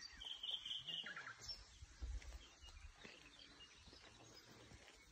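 Faint birdsong: a few short high chirps and a brief trill in the first second or so, over quiet outdoor ambience, with a low rumble on the microphone around the middle.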